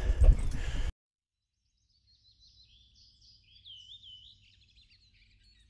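About a second of loud outdoor noise that cuts off abruptly, then faint songbird song: high chirps and trills, with a clear slurred whistle a few seconds in.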